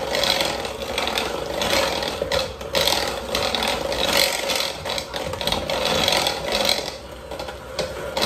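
Electric hand mixer running on low, its beaters churning and scraping through a thick, crumbly graham cracker crumb mixture in a bowl. A steady motor whine sits under an uneven rattle and scrape that swells and dips as the beaters move around the bowl.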